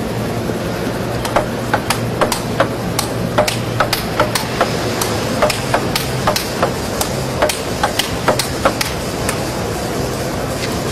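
Table tennis ball clicking sharply off bats and table in quick, irregular succession, about three contacts a second for some eight seconds, as in a rally. A low steady hum runs beneath.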